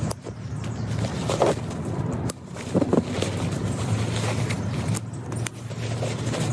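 Padded fabric carry wrap rustling and scraping as it is rolled around a folded camp chair, with its webbing straps pulled tight and buckled, giving short scrapes and clicks. Underneath is a steady low rumble.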